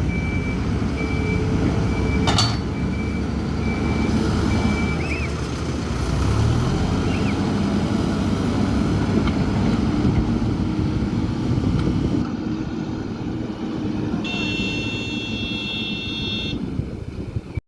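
Hidromek 102S backhoe loader's diesel engine running at work, with its reversing alarm beeping at an even pace for the first five seconds. The engine revs up about six seconds in, and a brief higher tone sounds near the end.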